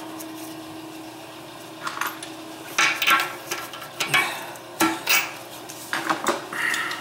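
Short bursts of metallic clinking and scraping, about five in a row, as a wrench works the nuts onto new brass toilet tank bolts.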